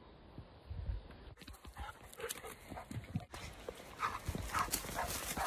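Labrador retriever moving through forest undergrowth: uneven paw footfalls and rustling of the vegetation, with repeated short bursts of noise in the second half. The sound changes abruptly twice, at cuts between clips.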